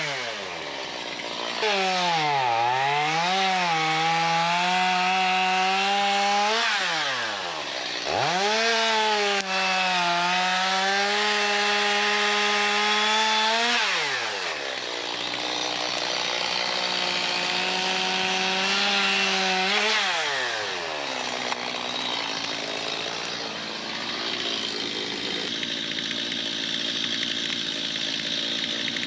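Stihl two-stroke chainsaw bucking logs: held at high revs through several cuts, its pitch sagging as the chain bites, then falling away to idle between cuts about every six or seven seconds. In the last third it runs lower and steadier.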